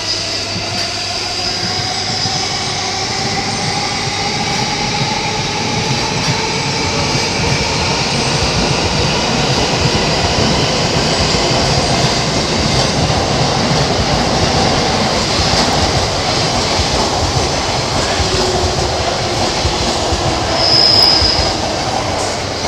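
Electric trains running through the station: a commuter train moves past with rail and wheel noise and a traction-motor whine that slowly rises in pitch. Near the end an E657 limited express pulls in, its motor tone falling, with one brief loud high-pitched squeal.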